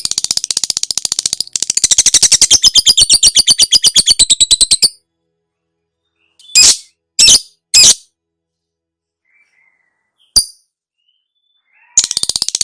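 Lovebird singing its 'ngekek' chatter: a long, rapid trill of shrill notes at about ten a second for some five seconds. Three short separate calls and a single sharp chip follow, and the chattering trill starts again near the end.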